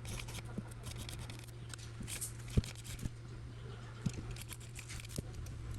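Light scraping and peeling of old OCA adhesive off a phone's LCD panel with a small hand tool, with a few sharp clicks, the loudest about two and a half seconds in.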